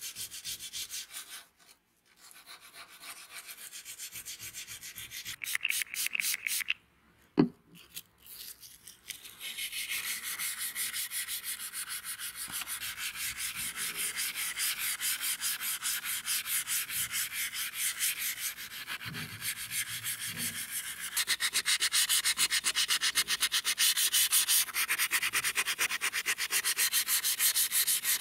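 Sandpaper on a block rubbing back and forth over a steel straight razor blade in quick, even strokes with a high, rasping hiss, louder over the last quarter. There is a single sharp click about seven seconds in.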